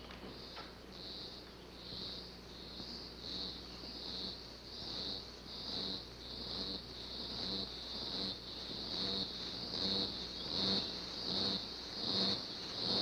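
Eerie rhythmic pulsing from a film soundtrack: a high chirring pulse about one and a half times a second, each with a low throb beneath it, building steadily louder.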